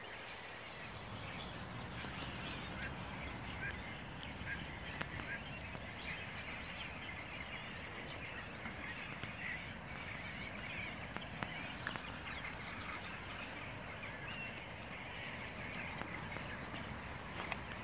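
A flock of common starlings chattering: a dense, continuous chorus of short high calls over a steady low background rumble.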